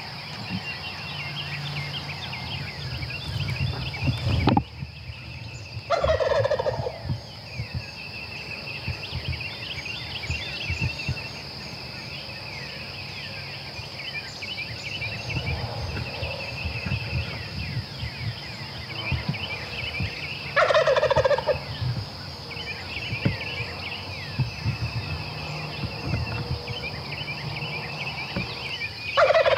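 A wild turkey gobbler gobbling loudly three times: about six seconds in, about twenty seconds in, and again at the very end. Small birds chirp in the background, over a steady high-pitched hum.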